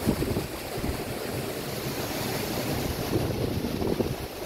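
Storm waves crashing against and over a seawall in tropical-storm winds, a continuous churning roar, with the wind buffeting the microphone in uneven gusts.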